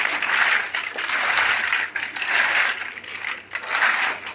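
Loose small plastic building bricks rattling and clattering against each other in repeated swells about once a second, as when a pile of pieces is stirred or shaken.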